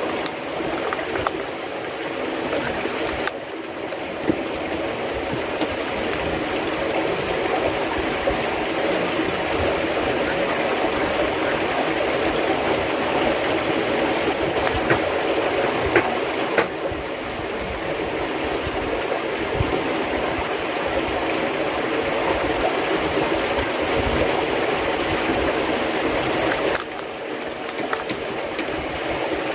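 Running water flowing steadily, with a few faint clicks.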